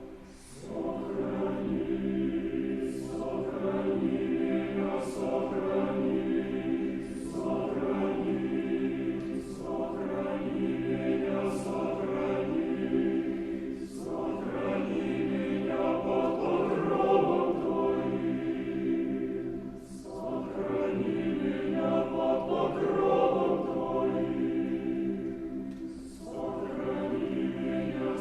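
Mixed choir singing slow, sustained chords in long phrases, with short breaks between them.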